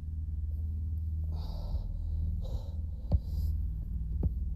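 A man breathing in short, hissy breaths close to a phone microphone over a steady low hum, with two sharp clicks in the second half.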